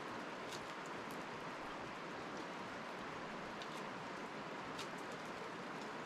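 Steady hiss of water outdoors, with a few faint, sharp clicks scattered through it.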